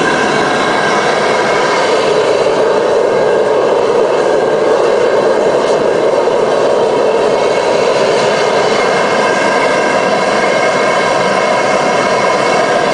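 Propane heater burning on a 20-pound tank: a loud, steady rushing noise like a jet engine, with faint steady tones above it.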